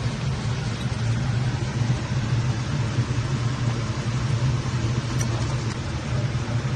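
Kitchen range-hood extractor fan running, a steady low motor hum under an even rush of air.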